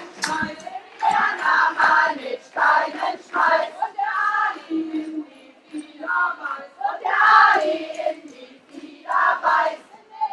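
A group of women singing a German-language strike song together, with a few hand claps right at the start.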